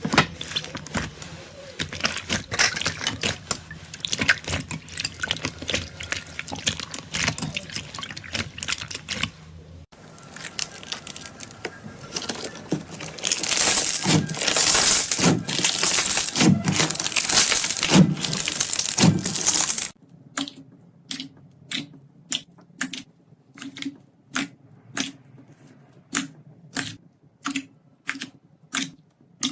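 Slime being squished, stretched and poked by hand: dense crackling and squelching, loudest in the middle, then after a sudden change a run of evenly spaced sharp pops, about two a second.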